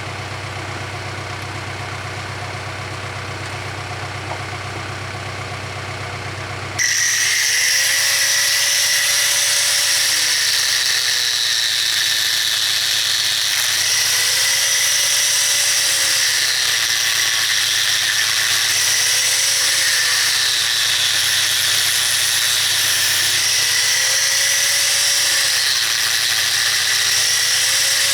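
A diesel engine idles steadily. About seven seconds in, an angle grinder with a thin cut-off disc starts with a loud, high-pitched squeal as it cuts through the steel wire in the bead of an old tire. Its pitch sags and recovers about every five seconds as the disc is pressed into the cut.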